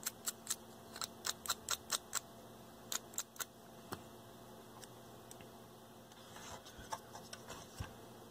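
Small metal tool scraping and flicking old solder off a capacitor's wire leads: a quick run of sharp clicks, several a second, for about three and a half seconds. The clicks then thin out to a few faint knocks of handling as the part goes back to the circuit board.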